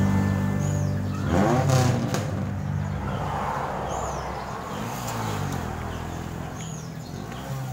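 A passing motor vehicle whose engine note rises and falls about a second and a half in, fading into a steady rush, with another swell around five seconds. Small birds chirp briefly a few times.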